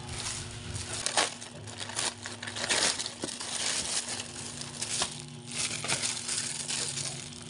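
Plastic packaging crinkling and rustling in irregular bursts as hands handle a plastic courier mailer bag and the clear plastic wrap around a folded baby crib.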